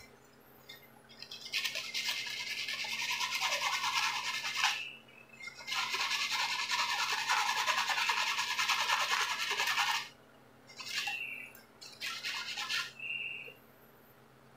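Sandpaper rubbed rapidly back and forth over an electric iron's thermostat contact points, scraping off the black corrosion that keeps the contacts from closing and the iron from heating. There are two long spells of scraping, of about three and four seconds, then two short bursts near the end.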